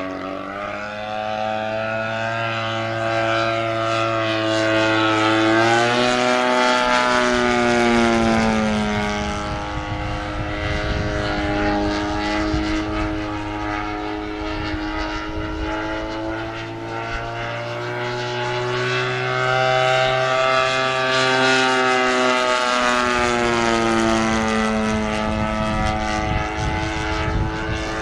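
The 50cc engine and propeller of a large-scale Extreme Flight Extra 300 model plane running in flight. The pitch drops and recovers twice, about six seconds in and again about twenty-two seconds in.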